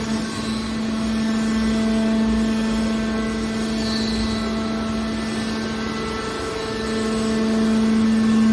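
Hydraulic scrap-metal baler running: a steady machine hum with a clear, even pitch over a low rumble, getting a little louder near the end.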